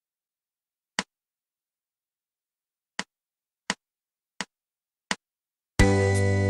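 Five short, sharp clicks in near silence: one, a pause, then four evenly spaced clicks in a steady beat, leading straight into music that starts near the end.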